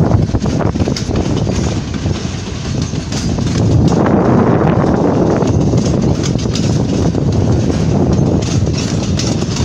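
A loaded freight train of hopper wagons rolling past, a steady rumble with the wheels clacking over the rails.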